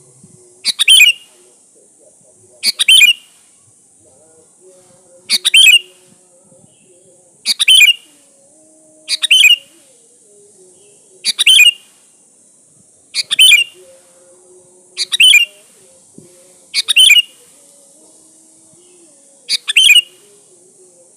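Sooty-headed bulbul (kutilang) calling: about ten short, loud calls, each a quick double phrase, repeated roughly every two seconds over a faint steady hiss.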